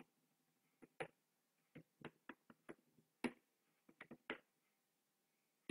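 Faint keystrokes on a computer keyboard: about a dozen separate, irregularly spaced clicks as a word of text is deleted and retyped.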